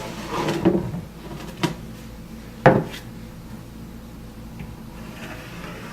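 Wooden cabinet panels being handled: a short scraping rub, then two sharp knocks of wood about a second apart, the second the loudest.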